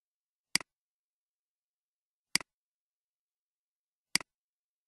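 Computer mouse clicking three times, about two seconds apart; each is a sharp click with a softer one straight after, with silence between.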